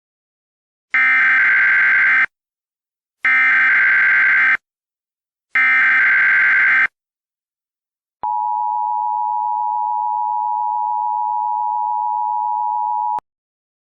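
Emergency Alert System broadcast tones: three identical bursts of warbling digital data tones, the SAME header that encodes the alert, each just over a second long. These are followed by the steady two-tone attention signal, held for about five seconds, which announces the start of an emergency alert.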